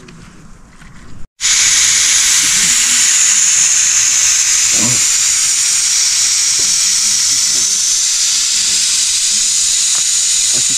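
Heavy rain making a loud, steady hiss that cuts in suddenly about a second in.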